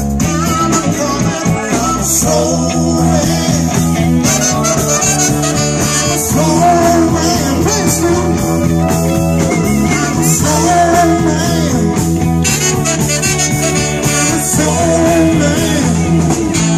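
Live blues band with horns and electric guitar, with singing over the band.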